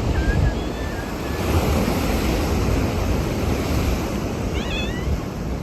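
Wind rushing and buffeting the microphone with a steady, heavy rumble. Cats meow over it: faint short meows about a second in and a clearer rising meow near the end.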